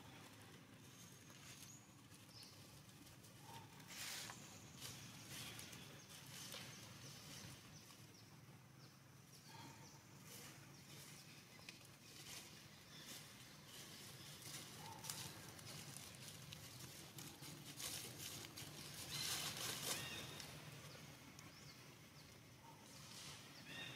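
Faint outdoor ambience: a low steady background with scattered soft rustles and clicks, a little louder about four seconds in and again near the twenty-second mark, and a few brief faint high chirps.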